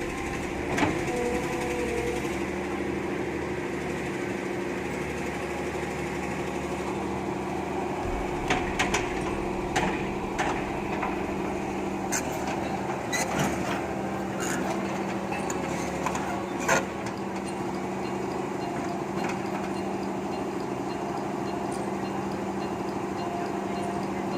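Hitachi UH07 hydraulic excavator's diesel engine running steadily under digging load, with scattered sharp metallic knocks and clanks from the bucket and boom. The machine is struggling to scoop, which the mechanic puts down to the engine or the hydraulic pump, likely from the unit's age.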